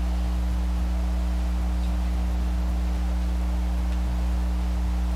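A deep, steady electrical hum that does not change.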